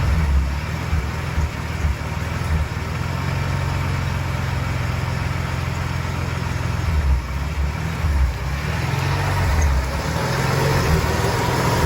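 Ford 300 (4.9 L) inline-six engine idling roughly, its low running uneven rather than smooth.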